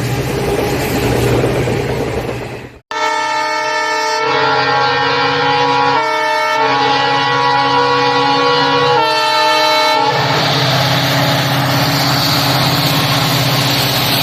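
WDP4D diesel locomotive's dual-tone horn blown repeatedly from about three seconds in, switching between its two notes several times, then stopping near ten seconds. Before and after the horn the locomotive and its train rumble past at speed.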